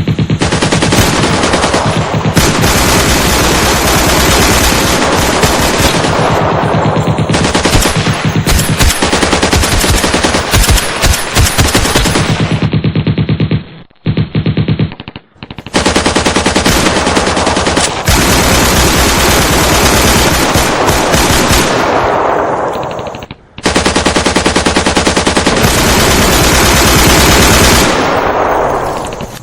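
Firefight sound effect of machine guns firing long, rapid automatic bursts almost without pause. The fire breaks off briefly near the middle and again for a moment about two-thirds of the way through.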